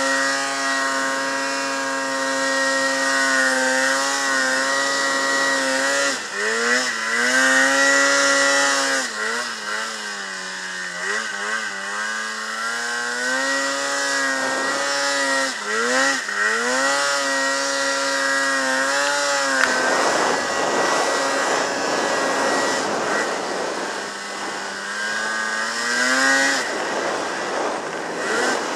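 Polaris Pro-RMK snowmobile's two-stroke engine running hard in deep snow, its pitch dropping and climbing again and again as the throttle is worked. From about two-thirds of the way through, a rushing hiss rises over the engine for several seconds.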